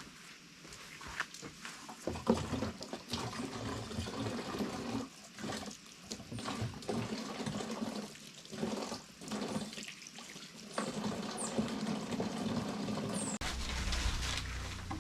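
Water pouring and splashing in uneven spells that stop and start. About thirteen seconds in, it gives way abruptly to a low rumble.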